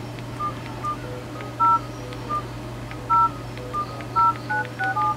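Keypad tones of a Philips E105 feature phone as its buttons are pressed to enter a number: a string of short electronic beeps, some with two notes at once, irregularly spaced and coming faster near the end. A steady low hum runs underneath.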